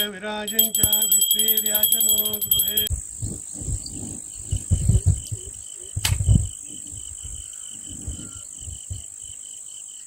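A man chanting in long held notes with a small handbell ringing rapidly, as in a Hindu aarti, for about three seconds. It then cuts to insects trilling: a steady high buzz and a chirp pulsing several times a second, with low rumbles and a sharp click on the microphone about six seconds in.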